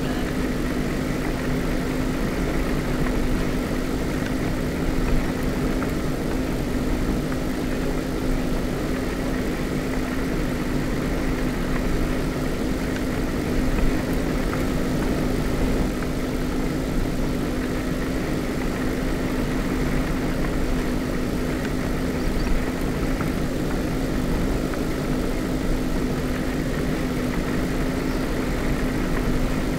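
A steady engine drone holding one unchanging hum, with no revving or changes in speed.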